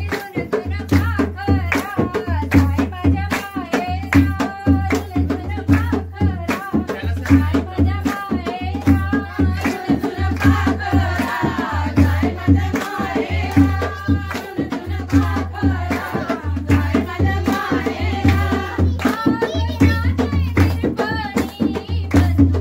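Group of women singing a Gauri festival pheri song in chorus, clapping their hands in time, over a low steady beat.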